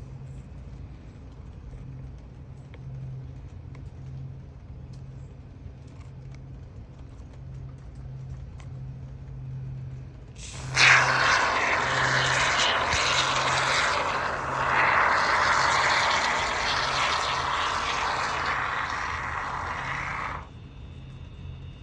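Aerosol can of expanding polyurethane foam spraying through its applicator straw into a gap: a steady loud hiss that starts abruptly about halfway through and stops abruptly about ten seconds later.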